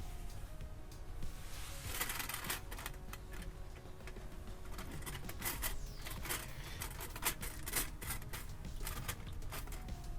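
Irregular small clicks and taps, with stretches of rustling.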